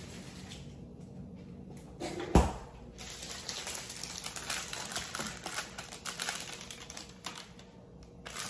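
A single loud thump about two seconds in, then a plastic candy wrapper crinkling and rustling as it is handled, a dense run of small crackles.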